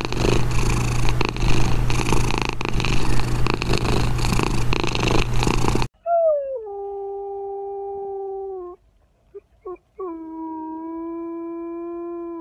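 For the first six seconds, a loud, rough continuous noise with a steady low hum. Then a wolf-like dog howls: one long howl that slides down in pitch and holds, a couple of short yips, then a second long howl that falls and holds steady.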